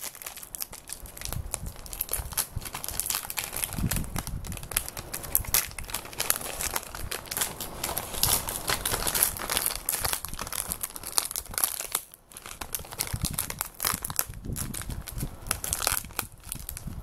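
Foil-lined cracker packet crinkling and rustling as it is handled and torn open by hand, with irregular crackling, a short pause about twelve seconds in, and some low handling bumps.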